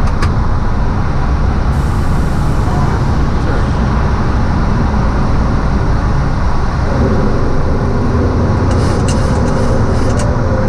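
Loud, steady low rumble of the Boeing 737 flight deck. About seven seconds in, faint steady humming tones join it, and a few short clicks come near the end.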